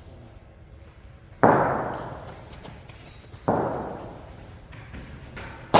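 Sharp cracks of a hard cricket ball impact, the first loud, a weaker one about two seconds later, and another loud one right at the end, each ringing on in the long echo of a large indoor hall.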